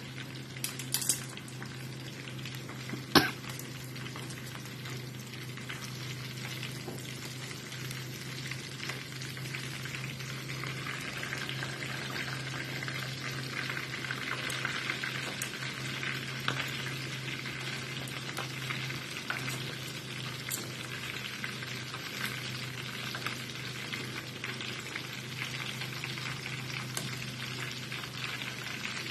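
Chicken pieces deep-frying in a pan of oil: a steady sizzle and crackle that grows louder about ten seconds in, with metal tongs turning the pieces. A single sharp knock about three seconds in is the loudest sound.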